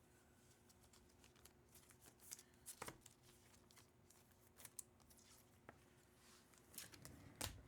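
Trading cards and card packs being handled on a table: faint, scattered rustles, slides and soft clicks, with a sharper tap near the end.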